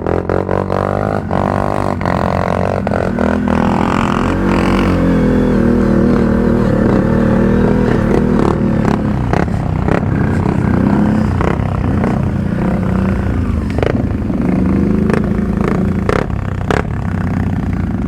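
ATV engine pulling up a steep climb, its revs rising and falling, with scattered sharp knocks and clatter.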